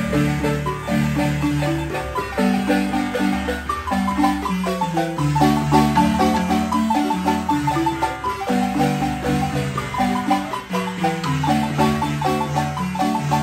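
Guatemalan wooden marimba played by three players with mallets. Rapidly repeated rolled notes in the bass run under a busy melody.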